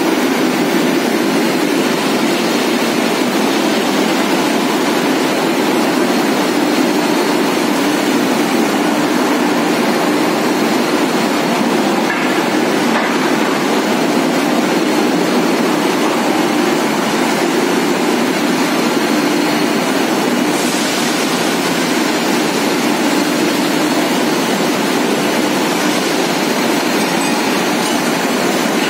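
Hot rolling mill running: roll stands and their drives turning as a red-hot steel bar passes through, a steady loud industrial din with water spray hissing. A higher hiss grows louder about twenty seconds in.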